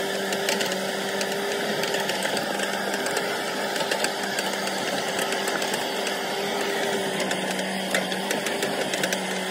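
JCB 3DX backhoe loader's diesel engine running as the machine drives over a rough dirt track, heard from inside the cab, with steady clatter and many small rattles.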